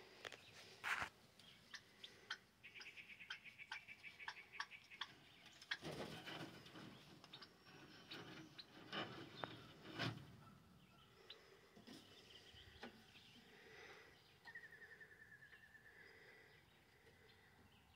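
Faint scratching and rustling of a nine-banded armadillo rooting in dry dirt, in scattered clicks with louder rustles about a second in and again midway. A bird trills in the background a few seconds in, and briefly again near the end.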